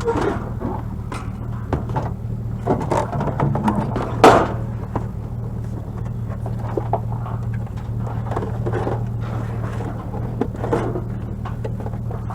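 Steady low hum of an idling vehicle engine under scattered knocks and scrapes, with one loud bang about four seconds in.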